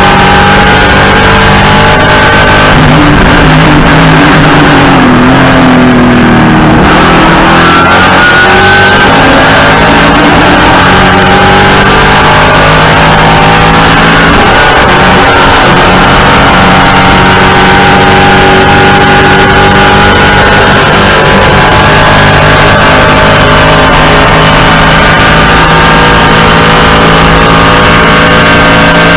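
Race car engine at racing speed, heard from inside the cockpit, very loud and distorted, its pitch repeatedly climbing and falling as it is driven hard through gear changes and braking.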